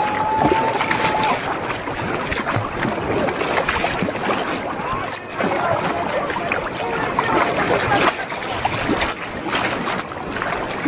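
Sea kayak moving through choppy water: water splashing and sloshing against the hull and paddle in irregular bursts, with wind buffeting the microphone.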